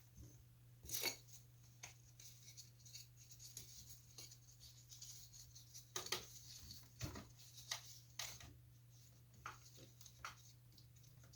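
Faint handling sounds from a chair glue-up: scattered clicks, taps and scrapes of wooden parts and clamps being worked, the sharpest about a second in and about six seconds in, over a low steady hum.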